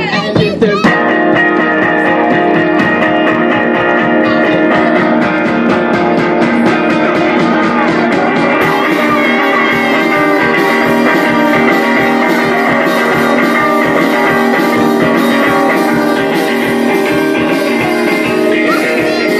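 Live rock band playing without vocals: electric guitar over a drum kit. A few hard drum hits come in the first second, then the band settles into steady, continuous playing.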